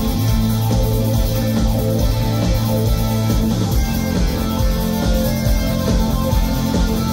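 Rock band playing live through a concert PA, with electric guitar, bass and a steady drum beat and no singing heard.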